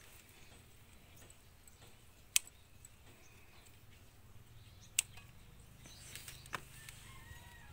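Scissors snipping through flower stems: two sharp snips, about two and a half and five seconds in, and a fainter one a little later, over a quiet background.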